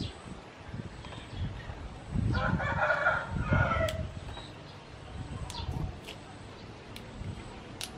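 A rooster crows once, about two seconds in, the call lasting nearly two seconds. Around it come soft handling sounds and a few sharp clicks as vegetables are picked over by hand.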